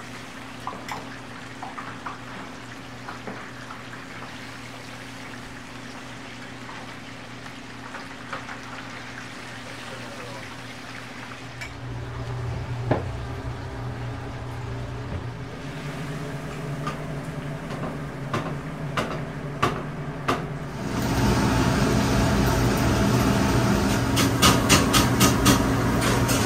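Breaded chicken deep-frying in oil in a commercial kitchen: a steady hum with a light hiss and scattered crackles. It swells in two steps, about halfway through and again near the end, into a loud, dense sizzle full of sharp crackles.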